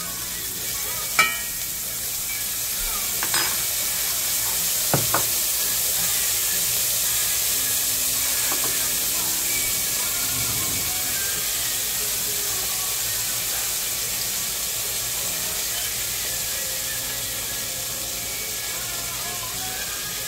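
Minced garlic sizzling in hot fat in a cast-iron skillet, a steady frying hiss. A few sharp knocks stand out, the loudest about a second in and a quick pair near five seconds.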